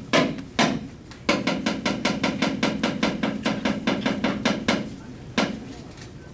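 Balinese dalang's wooden cepala knocking on the wooden puppet box: two single knocks, then a fast even run of about eight knocks a second for some three and a half seconds, then one last knock. The knocks are the dalang's cues for the kayonan (tree-of-life puppet) as it moves on the screen.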